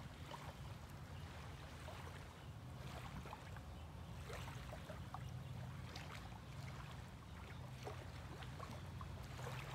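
Faint outdoor ambience: a low steady hum with scattered light ticks, and no voice.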